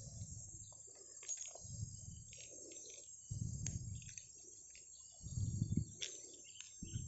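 Faint handling noise from a gloved hand rubbing against the microphone, coming as soft low bumps every second or two, with a few light sharp clicks.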